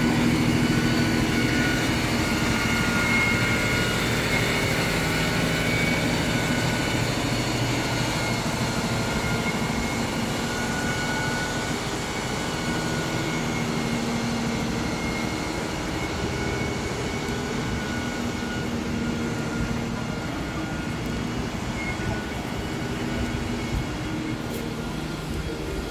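Fire engine running steadily to power its water pump, feeding the hoses at a fire: a loud, even engine drone with several steady whining tones over it, easing slightly later on.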